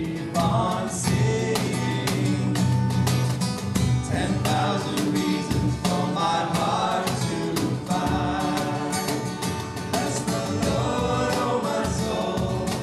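Background music: a song with singing voices over instruments and a steady beat, fading down near the end.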